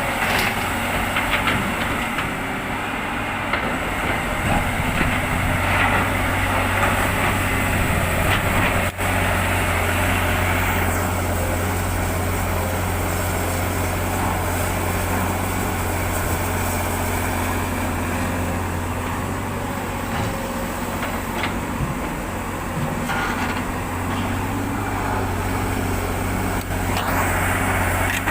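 Heavy diesel earthmoving machinery running steadily, with scattered short clanks and scrapes over the engine.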